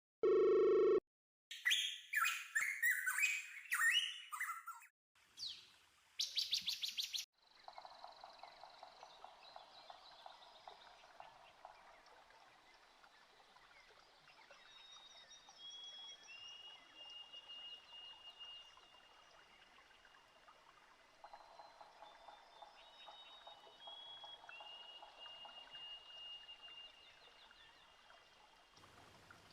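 Birds chirping and singing: loud, high chirps in the first few seconds, then a quieter, steady chorus of trills and chirps. Two short pitched tones sound right at the start.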